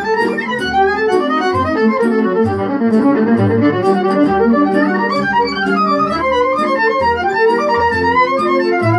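Violin playing a quick-moving melody over an electronic keyboard accompaniment with a bass line and a steady percussive beat.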